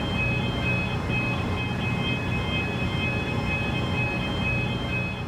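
Vehicle engine running with a steady low rumble as the car reverses slowly up a steel ferry loading ramp, with a steady high-pitched electronic tone over it.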